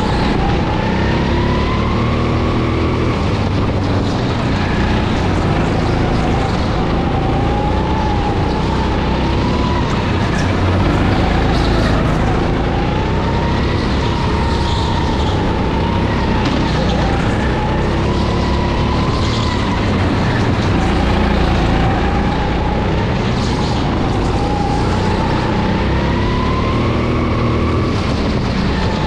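Racing kart's nine-horsepower engine running at speed, its whine rising and falling again and again as it speeds up and slows, over a steady low rumble.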